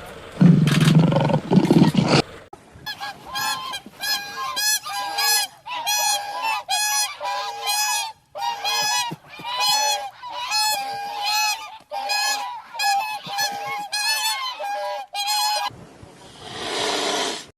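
Domestic waterfowl honking over and over, about seventeen short nasal calls in a steady rhythm. It is preceded by a loud, low sound in the first two seconds and followed by a brief hiss near the end.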